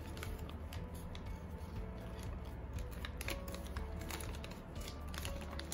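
Paper rustling and crackling as a folded paper sheet is opened out by hand, in many short crackles, over quiet background music.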